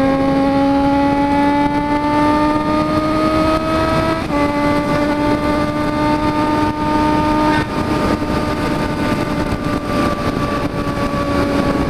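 Motorcycle engine pulling under acceleration, its pitch climbing steadily, then dropping suddenly at two upshifts about four and seven and a half seconds in, after which it holds steady at cruising speed. Wind rushes on the microphone throughout.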